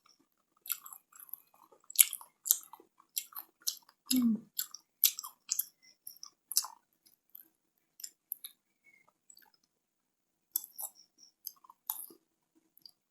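Close-miked chewing of chocolate sweets: irregular crisp crunches and wet mouth clicks, busiest in the first half and again near the end, with a brief low hum about four seconds in.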